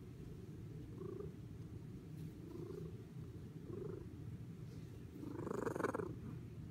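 Domestic cat purring steadily, a low pulsing rumble close to the microphone, with a brief louder noise near the end.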